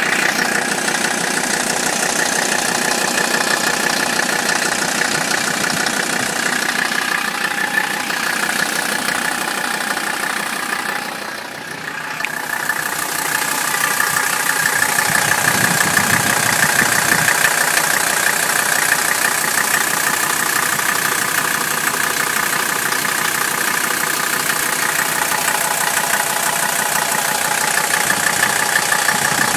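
Mercedes-Benz five-cylinder turbo diesel idling with a steady diesel clatter, heard close in the engine bay, dipping briefly in loudness about eleven seconds in. It is a rough, shaking cold idle that the owner is setting out to cure with rebuilt injector nozzles.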